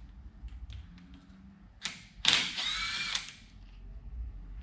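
A handheld power drill motor runs for about a second, its pitch rising then falling, just after a short first burst.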